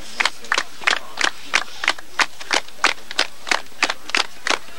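A group clapping in unison at a steady beat of about three claps a second, with faint voices between the claps.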